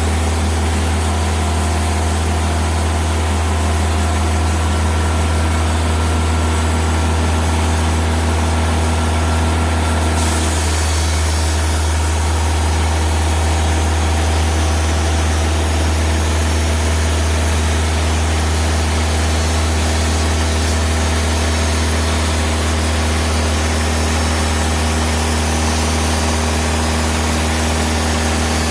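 Diesel engine of a TimberKing 2000 bandsaw sawmill running steadily under a constant low hum, its sound shifting slightly about ten seconds in.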